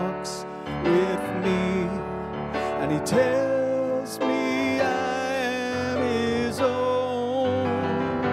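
A hymn sung by a man into a microphone, to his own piano-sound keyboard accompaniment of sustained chords.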